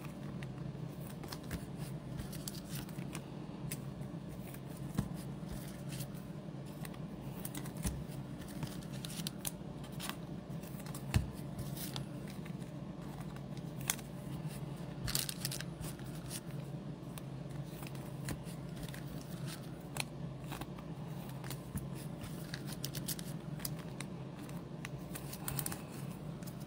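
Hands handling baseball trading cards and their packaging on a table: scattered light clicks, taps and rustles, with one sharper tap about eleven seconds in, over a steady low hum.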